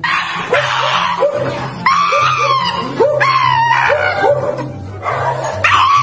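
Shiba Inu screaming in distress while being held: a run of shrill, wavering screams, over background music with a repeating plucked bass line.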